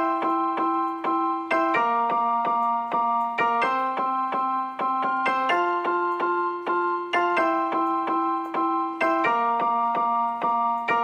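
Background piano music: a gentle run of evenly spaced notes, with the chord changing about every two seconds.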